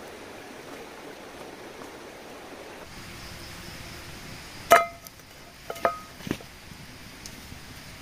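Steady rush of a shallow stream over rocks. Then a metal frying pan clinks sharply with a brief ring as it is set down over a small campfire, followed by two or three lighter clinks and knocks.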